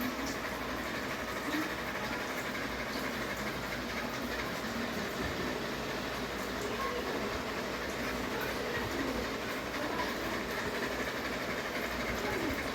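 Ceiling fan running with a steady whooshing hum.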